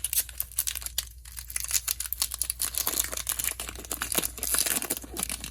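Crinkling and rustling as Magic: The Gathering cards and their packaging are handled: a dense run of sharp crackles, loudest in spells.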